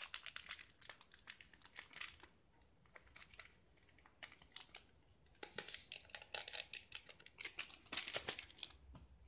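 Nescafé Original stick sachet of instant coffee crinkling as it is flicked, torn open and emptied into a glass: light crackles in a short spell at the start and a longer one in the second half.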